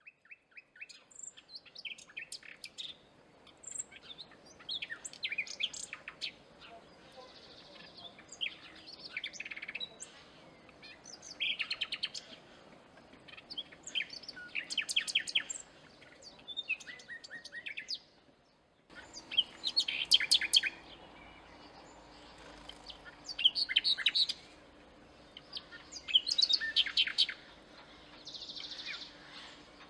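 Common nightingale singing: phrases of a few seconds each, many built from fast runs of repeated notes, separated by short pauses.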